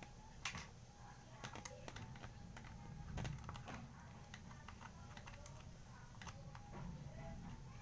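Faint, irregular small clicks and taps of a micro Phillips screwdriver working screws out of a tape recorder's casing, with parts being handled.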